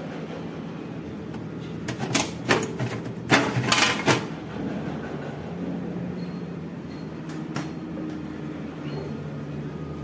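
Doors of a Midea MDRT346MTB top-freezer refrigerator being closed and opened by hand: a cluster of sharp knocks and clicks about two to four seconds in, then two lighter clicks later on, over a steady low hum.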